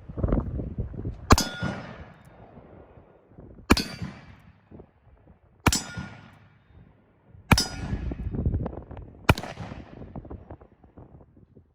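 Five shots from a Standard Manufacturing Single Action Army revolver in .45 Colt, firing hand-loaded Triple Seven black powder substitute rounds. The shots come about two seconds apart, and each has a short ringing tail.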